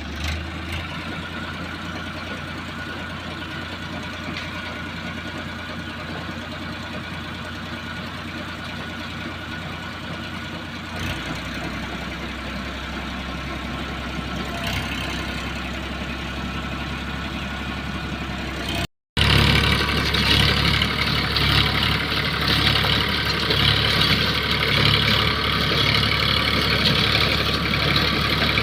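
Massey Ferguson tractor's diesel engine running steadily with the rotavator engaged. After a sudden break about two-thirds of the way in, it comes back louder and harsher.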